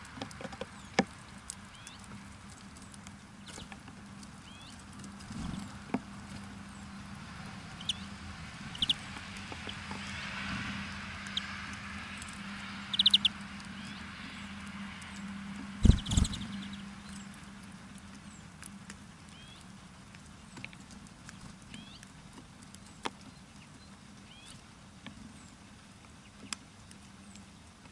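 Small birds at a winter seed feeder: scattered sharp taps and clicks of beaks and feet on the feeder, with short high chirps now and then. A heavier knock about halfway through is the loudest sound, over a faint steady low hum.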